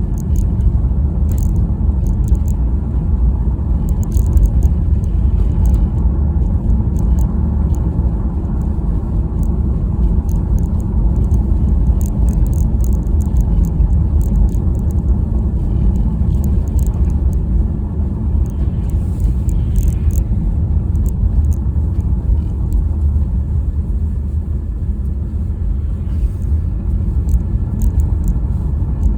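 Steady low rumble of a car being driven, engine and road noise running without a break.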